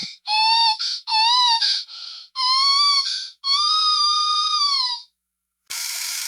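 A baby crying in four wailing cries of about a second each, heard thin and hissy through a baby monitor's speaker. Near the end the cries give way to a burst of monitor static hiss.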